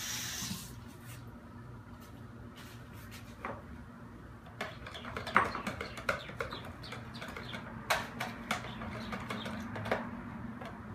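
A utensil stirring a thick, creamy mixture in a large plastic mixing bowl, with scattered knocks and scrapes against the bowl, most of them in the second half.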